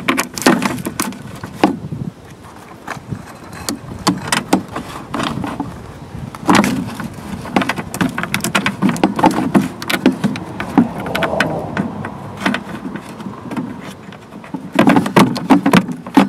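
Thin embossed metal heat shield being pushed and shifted up against a car's underbody: irregular clusters of tinny rattles, scrapes and knocks, busiest about a second in, midway through and near the end.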